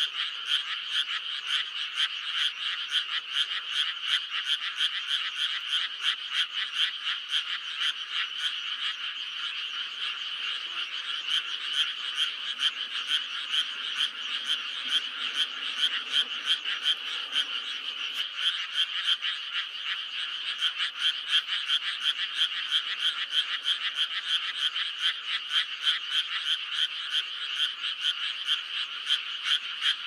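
A dense chorus of many frogs, a spring breeding chorus, with rapid overlapping calls running on at a steady level.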